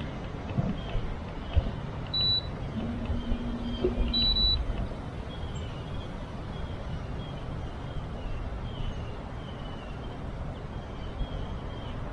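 Steady wind and water noise around a small boat, with two short high electronic beeps about two and four seconds in, the second slightly longer, and a brief low hum between them.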